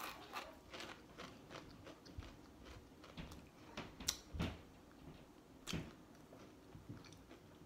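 Person chewing a Pringles potato crisp with the mouth closed: faint crunching, a quick run of small crunches in the first second or so, then a few sharper single crunches around the middle.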